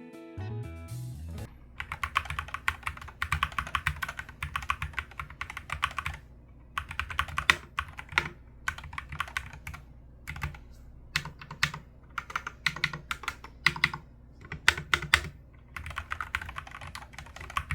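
Typing on a MonsGeek (Akko) FUN60 Pro 60% keyboard with Akko Glare magnetic switches: fast runs of keystrokes with short pauses and a few single strokes between. The sound is clear and light.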